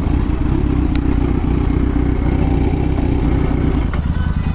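Kawasaki Z900's inline-four engine idling steadily, with other motorcycles idling close by. About four seconds in, the engine note changes and a lower rumble carries on.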